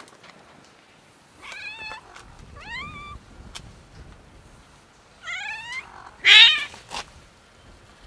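Cat meowing, four meows with several rising in pitch, the loudest about six seconds in.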